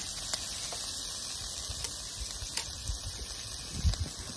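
Chopped sausage and pepper sizzling steadily in a frying pan, with a few faint clicks and a couple of low bumps near the end.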